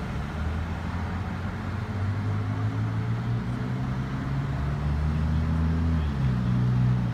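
A motor vehicle's engine running, a low steady hum that grows louder about two seconds in and shifts in pitch near the end.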